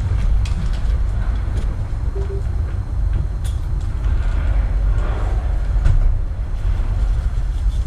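Wind buffeting the microphone: a steady, fluctuating low rumble, with a few faint clicks and knocks.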